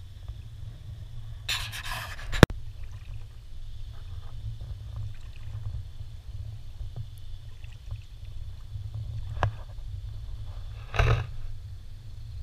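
Water splashing and lapping right at the microphone over a steady low wind rumble: a burst of splashing about two seconds in that ends in a sharp knock, a lighter click later on, and another short splash near the end.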